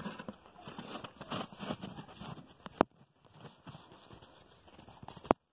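Rustling and crunching in straw bedding as a goat moves about the pen, with two sharp clicks, one about three seconds in and one near the end.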